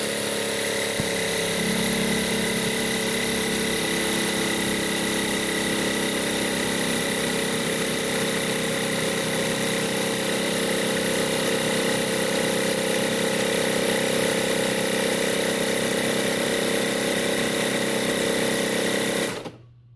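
MPS mini air compressor running steadily and loudly while filling a 1 lb air bottle, then cutting off suddenly near the end as its automatic pressure switch shuts it off at about 120 psi.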